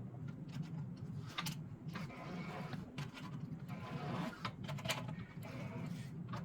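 MIG welding wire being wound between spools on a homemade wood-and-bolt jig: the spool turning with irregular clicks and scraping of the wire, over a steady low hum.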